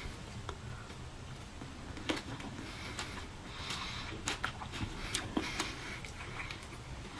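Close mouth sounds of someone eating juicy pepino fruit: wet chewing with an irregular scatter of short clicks and smacks.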